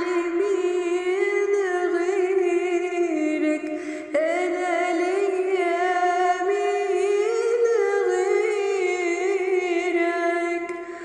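A woman singing a Christian worship song in two long, sustained phrases with gliding, ornamented notes, broken by a short pause about four seconds in.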